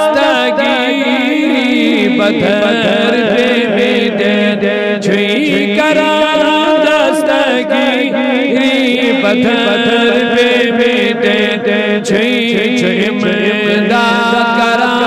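A man's voice chanting a manqabat, a devotional Urdu praise poem, in a drawn-out melodic style with wavering, held notes.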